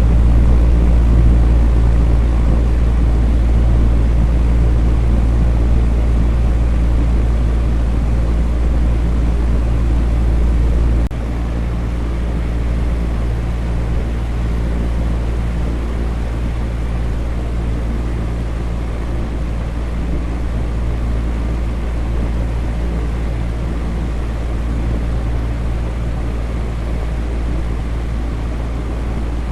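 Electric fan running steadily: a deep hum under an even airy rush. About eleven seconds in, the deepest part of the hum drops off abruptly and the sound becomes a little quieter, then carries on unchanged.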